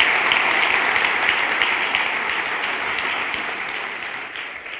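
Large seated audience applauding, a dense patter of many hands clapping that slowly dies away toward the end.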